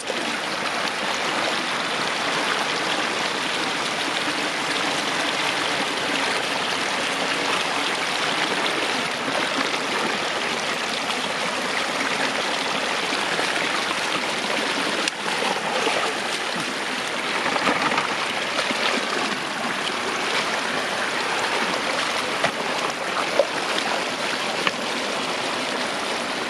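Floodwater running steadily across a road, with a few brief louder sounds in the second half.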